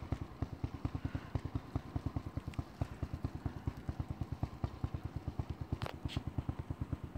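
Yamaha Grizzly ATV's single-cylinder engine running slowly with an even beat of about eight pulses a second as the plow-fitted machine moves off through the snow. Two brief sharp noises sound about six seconds in.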